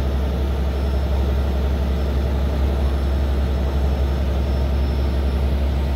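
Passenger ferry's engine droning steadily with a deep, even hum, mixed with water rushing along the moving hull.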